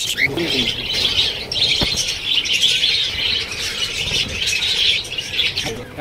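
A flock of budgerigars chattering and chirping without a break, a dense high warble of many birds at once. A single sharp tap sounds about two seconds in.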